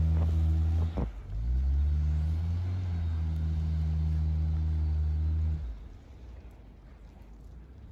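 Mail delivery vehicle's engine revving hard at a steady pitch while it struggles in deep snow. It drops out briefly about a second in, climbs back up and holds, then cuts off abruptly after about five and a half seconds.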